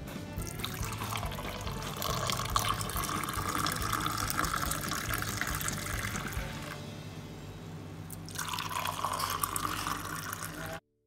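Hot milky tea poured from a saucepan into a mug: a steady splashing stream for about six seconds, a short pause, then a second pour of a couple of seconds into another mug.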